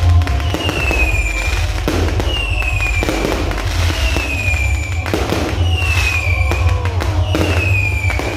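Fireworks barrage going off continuously: rapid bangs and crackle of bursting shells, with a whistle that falls in pitch five times, about every one and a half to two seconds.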